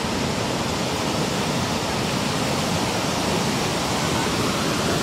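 Steady rushing noise of breaking surf from the tsunami's incoming wave front.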